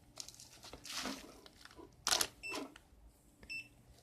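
A USB cable is handled and plugged in, with a sharp click about two seconds in. Then an electronic device gives two short, high beeps about a second apart.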